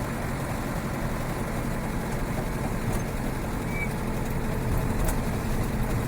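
Land Rover Defender 110 running along on the road, heard from inside the cab: a steady engine and drivetrain drone with road noise, swelling slightly near the end.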